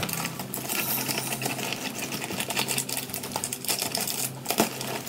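Scissors cutting open a plastic poly mailer bag, a fast, irregular run of small snips.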